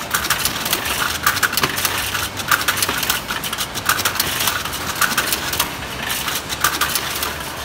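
Moba Forta GT100 egg grader running at its packing lane: a steady low mechanical hum under rapid clicking and clattering, with repeated sharper clacks at irregular intervals.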